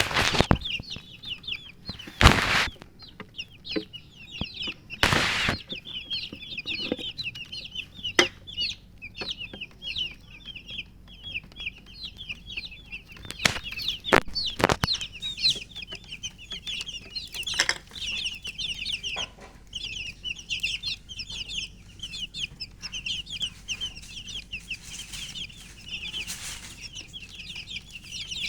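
A group of baby chicks peeping continuously, many short, high, falling peeps overlapping, which the uploader puts down to the chicks being thirsty. Several loud sharp knocks or thumps break in, the loudest about two and five seconds in.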